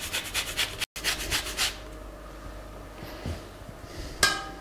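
Orange zest being grated on a fine stainless rasp grater: quick scraping strokes, several a second, that stop about a second and a half in. A single ringing metallic clink near the end.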